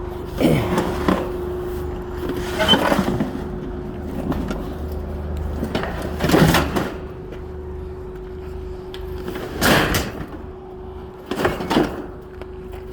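Forklift engine running steadily, with about five loud metal clanks and scrapes as a scrap air-conditioner unit is shifted and set down on the trailer.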